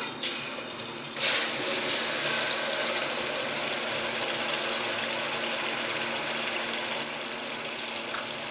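Hot cooking oil starts sizzling loudly about a second in as ground onion paste is dropped into it, then keeps up a steady frying sizzle. A light clink of the ladle or bowl comes just before.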